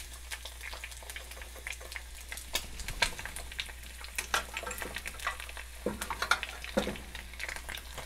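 Eggs frying in avocado oil in a pan: a steady sizzle with frequent small crackles and pops.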